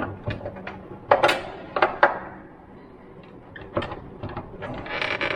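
Sharp metallic clicks and knocks of a hinge-bending tool levered against a fire door's frame-side hinge, bending it over to shift the door gap. A rubbing scrape builds near the end.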